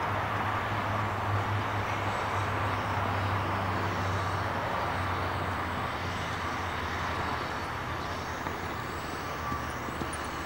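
Steady rushing outdoor background noise with a low hum under it, easing off slightly near the end.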